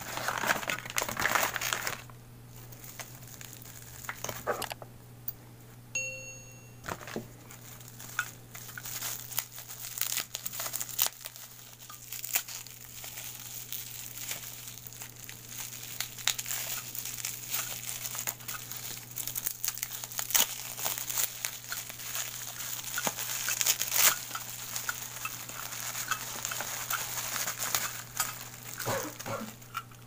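Packaging being unwrapped by hand, crinkling and rustling in irregular crackly handfuls throughout.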